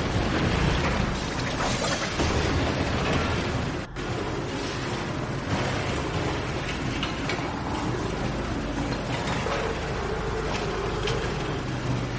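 Strong wind blowing in gusts with a heavy low rumble and a rattling, clattering noise. The sound drops out for an instant about four seconds in.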